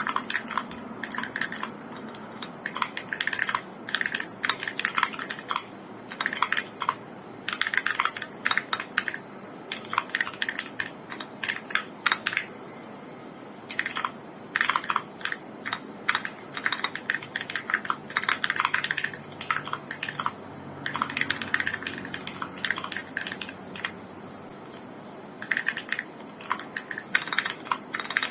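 Typing on an Akko ACR Pro Alice Plus mechanical keyboard with TTC Gold Pink linear switches: quick runs of keystrokes clacking, broken by short pauses between words and phrases.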